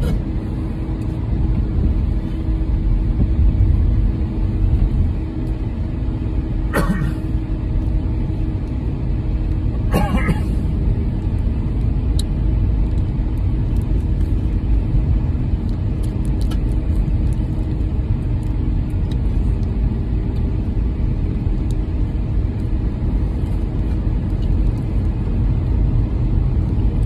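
Steady low rumble of a car heard from inside the cabin, with a faint hum. Two brief crackles come about seven and ten seconds in.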